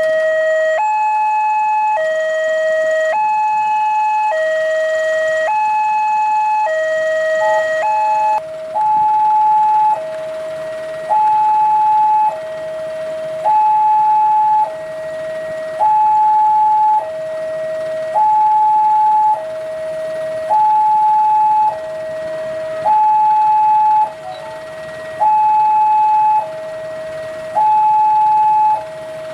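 Railway level-crossing warning alarm from the loudspeaker on the crossing signal post: an electronic two-tone signal alternating between a high and a low note about once a second, warning of an approaching train. From about eight seconds in, the low note is quieter than the high one.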